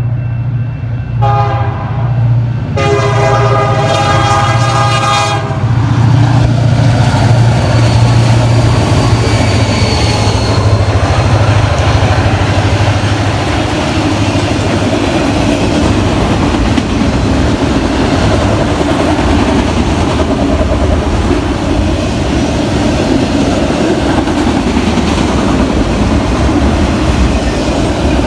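BNSF diesel freight train sounding its horn: a short blast at the start and a longer one a few seconds in. The horn then gives way to a steady loud rumble of the locomotive and freight cars rolling past.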